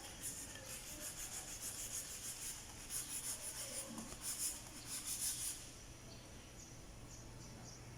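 Quick repeated rubbing strokes on a surface, several a second, stopping about five and a half seconds in.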